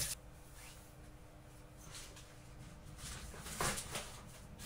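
Quiet room with a faint steady hum and a few soft knocks of things being handled; the loudest knock comes about three and a half seconds in.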